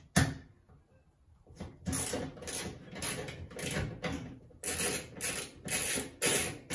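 Socket ratchet wrench with an extension clicking in short back-and-forth strokes as it loosens the bolt holding a fluorescent light fixture's ballast. One sharp click comes right at the start, then after a brief pause the ratcheting strokes begin and settle into about two a second.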